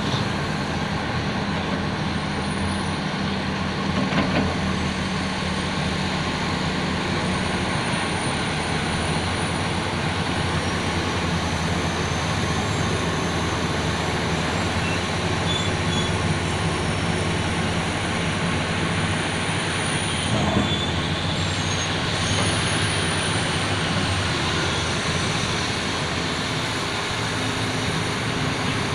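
Heavy diesel earthmoving machinery running steadily: the Sany SY500H excavator and Tonly TL849R off-road dump truck at work. A thin high whine wavers above the engine hum, with two brief knocks, about four seconds in and again about twenty seconds in.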